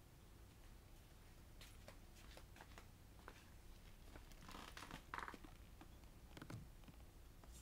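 Quiet handling sounds: faint scattered clicks and taps, and a brief crinkly rustle of plastic a little past halfway, followed by a soft knock.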